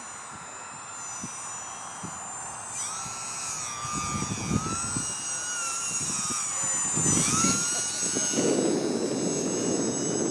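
Electric motor and propeller of a UMX Turbo Timber ultra-micro RC plane whining in flight as it makes a low pass, its pitch dipping and rising several times. A low rumbling noise joins about four seconds in and grows louder toward the end.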